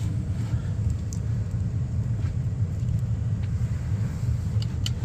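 Steady low rumble with a few faint light clicks near the end.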